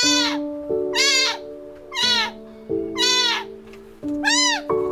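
Kitten meowing five times, about once a second, each meow high and arching, over background music of sustained notes.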